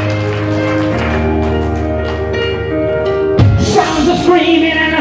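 Live rock band playing through a theatre PA: held keyboard chords over a steady bass note, then a crash about three and a half seconds in as a voice starts singing over the band.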